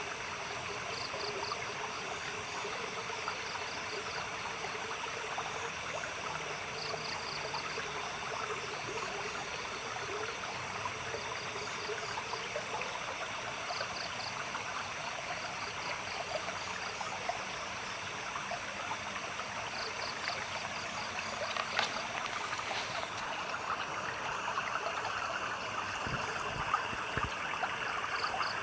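A small stream trickling and splashing over stones in a steady rush, with short high-pitched chirps from a night creature repeating every second or two.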